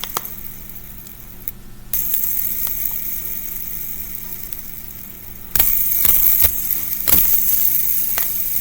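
Mini fidget spinner spinning with a steady whir, with a few sharp clicks as it is flicked and handled.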